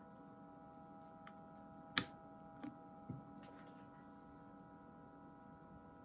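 Faint steady hum from a valve transmitter's power supply and test gear. About two seconds in a sharp switch click marks the transmitter being switched off, and its carrier goes off; a few softer clicks follow.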